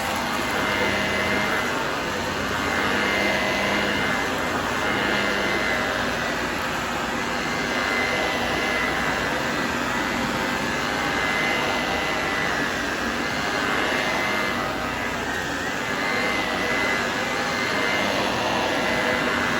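Shark ZU632 powered lift-away upright vacuum running steadily with a high whine over its rush of air. The owner suspects something is caught in the brush roll.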